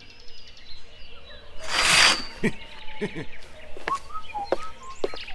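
Cartoon sound effects with the music dropped out: a short, loud rushing hiss about two seconds in, then scattered light clicks and brief chirps.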